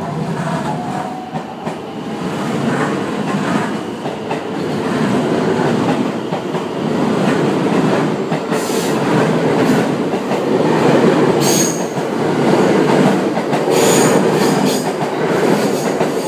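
JR West 223/225-series electric commuter train running past close by, its wheels rumbling and clattering over the rail joints. Brief high wheel squeals come twice in the second half.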